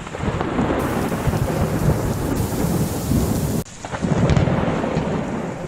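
Strong blizzard wind hitting the microphone: a loud, unsteady, gusting rumble of noise. It changes character abruptly about a second in, then dips sharply for a moment past three and a half seconds before picking up again.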